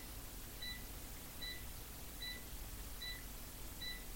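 Faint electronic beeping: five short, high beeps of the same pitch, evenly spaced about 0.8 seconds apart, over a low steady background hum.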